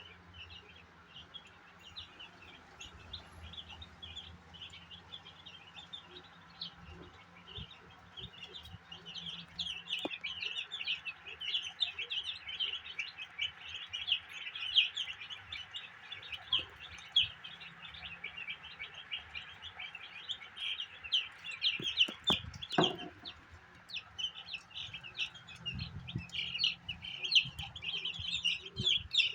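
A flock of broiler chicks peeping together: a dense chorus of short, high cheeps that grows busier about ten seconds in, over a faint low hum.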